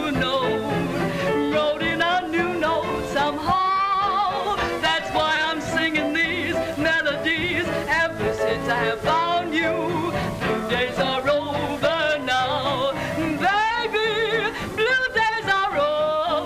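A woman singing a song with a wavering vibrato on her held notes, over instrumental accompaniment, with the thin, top-cut sound of a 1930s film soundtrack.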